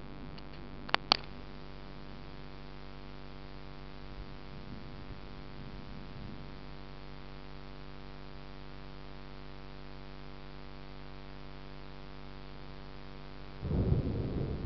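A steady electrical hum with two sharp clicks about a second in. Near the end a low rumble of thunder starts suddenly and keeps rolling.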